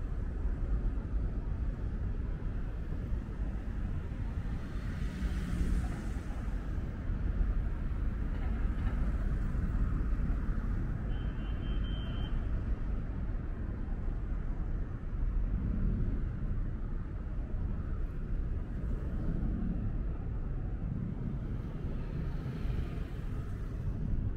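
Outdoor street ambience: a steady low rumble of traffic with a vehicle or two passing, and a short high tone about eleven seconds in.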